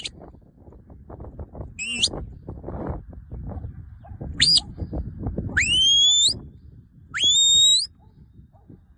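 A shepherd whistling commands to a working sheepdog: four high whistles. The first two are short upward sweeps. The last two are longer, sweeping up and then holding steady, and they are the loudest.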